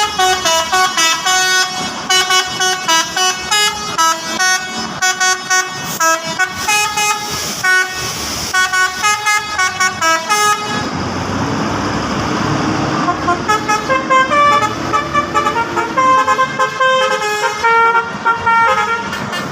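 Basuri telolet bus horn playing a quick multi-note melody, note after note in rapid steps. Around the middle the tune gives way for a few seconds to a loud rushing noise with a low drawn-out tone, then the horn melody starts again.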